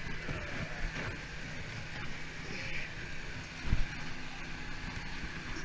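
Muffled scuffs and knocks from hands gripping and climbing a rope cargo net over a steady wind-like rumble, with one heavier thump a little past halfway.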